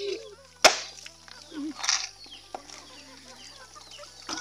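A machete blade chopping into a coconut once with a sharp crack about half a second in, and a fainter knock near the end. Chickens cluck softly in between.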